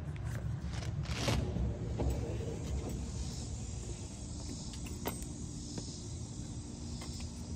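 Steady low rumble of wind and handling noise on a phone microphone while walking, with a few short clicks and footsteps on concrete steps.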